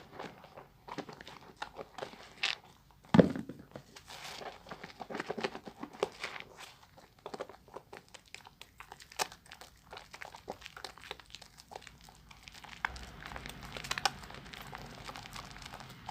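Sponge rubbed and squeezed against a bar of baby soap, the foam giving a dense run of wet crackles and squishes, with one sharp knock about three seconds in. A low steady rumble joins near the end.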